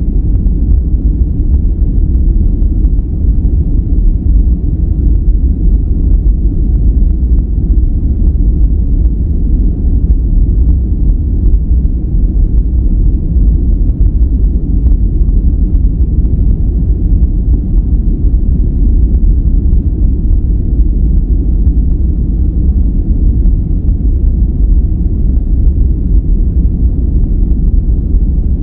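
Continuous relaxation noise track, steady and unchanging, with a deep rumbling sound like brown noise rather than a hiss.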